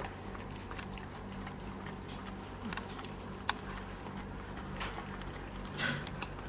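Newborn puppies and their mother dog shifting about: scattered soft clicks and rustles, with a sharp click about halfway through and a brief scuffle near the end, over a steady low electrical hum.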